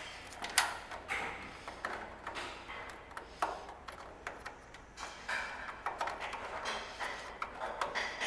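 Irregular metallic clicks, clinks and short rattles of hand tools and small parts being handled while working on a riding mower's dashboard.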